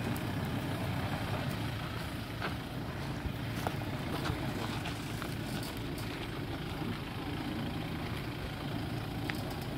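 Engine of a dual-cab 4x4 ute running low and steady at crawling speed as it picks its way through a rutted off-road hole, with a few faint clicks scattered through.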